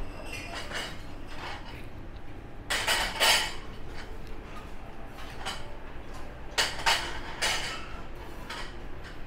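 Dishes and cutlery clinking and clattering, in two bursts about three seconds in and about seven seconds in, over a low steady background hum.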